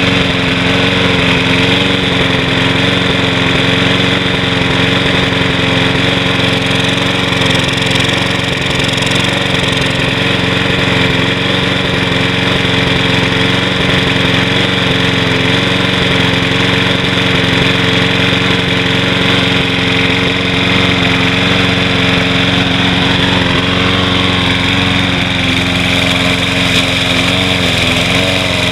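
Briggs & Stratton 675 series single-cylinder four-stroke engine on a Troy-Bilt walk-behind mower, running steadily at a constant speed. It still has a slight skip, a misfire that the owner puts down to fuel contaminated with oil, or to a carburetor and linkage still fouled from an oil overfill. The pitch wavers slightly near the end.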